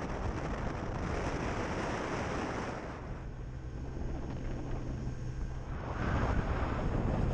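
Wind rushing over the microphone of a camera on a moving motor scooter, with the scooter's engine running underneath. The rush eases about three seconds in, leaving a steady low engine hum, then grows louder again about six seconds in.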